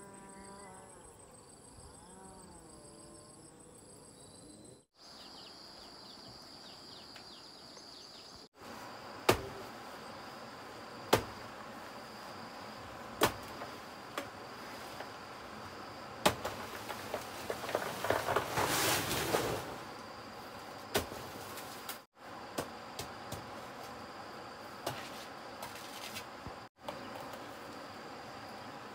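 Steady high buzzing of insects, broken by a series of sharp, loud chops of a long knife into soft banana trunks, and a rustling burst of leaves and stalk about two-thirds of the way through.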